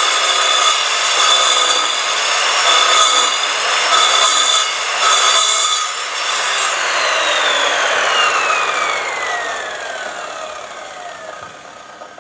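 Evolution RAGE4 chop saw's carbide-tipped blade cutting through a 30 mm square mild steel bar: a loud, harsh cutting noise over a steady motor whine for about the first six seconds. Then the cut is through and the motor is switched off, and its whine falls steadily in pitch and fades as the blade spins down.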